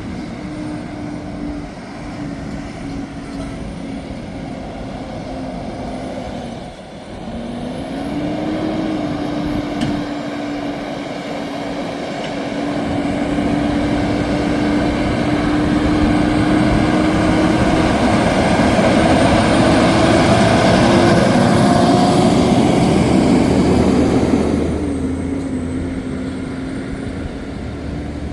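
Heavy-haul Kenworth T800 truck's diesel engine running under load with road noise. It grows louder through the middle, then drops away fairly suddenly near the end as the engine note falls in pitch.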